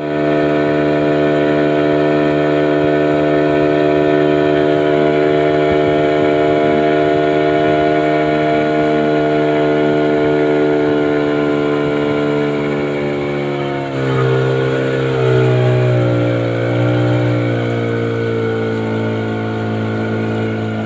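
Small motorboat engine running steadily under way, then throttled back about 14 seconds in, its pitch dropping and then sinking slowly as the boat slows.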